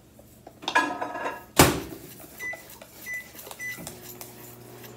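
A microwave oven door shuts with a loud click. Three short keypad beeps follow, and about four seconds in the oven starts running with a steady low hum, set to heat for 20 seconds.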